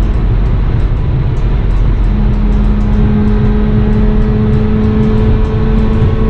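Mazda RX-8 cruising at steady highway speed, heard from inside the cabin: a steady low rumble of its 13B Renesis two-rotor engine and road noise. Background music with held notes comes in about two seconds in.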